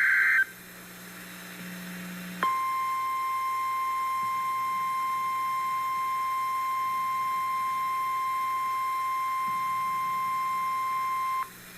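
NOAA Weather Radio's 1050 Hz alert tone: a single steady high-pitched tone that starts about two seconds in, holds for about nine seconds and cuts off sharply. It is the alarm that precedes a broadcast watch or warning. At the very start, a brief buzzy digital header burst ends.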